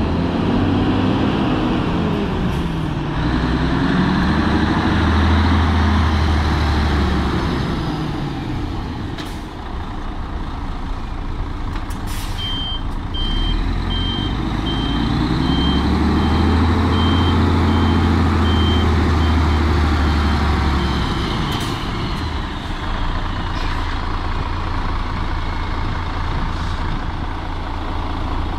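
Mercedes-Benz Actros 3340 truck's diesel engine driving, its pitch rising and falling twice as the truck pulls away and slows. Midway a reversing beeper sounds steadily for several seconds while the truck backs up. A few short bursts of air hiss from the air brakes come in between.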